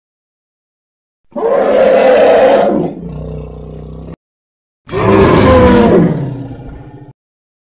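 Two loud reconstructed calls for extinct elephants, separated by a brief silence. The first call ends in a lower, steady rumble and cuts off suddenly. The second call falls in pitch as it fades away.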